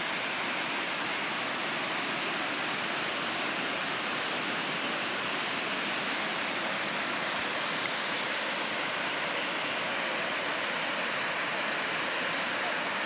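Steady rushing of water, an even hiss without a break.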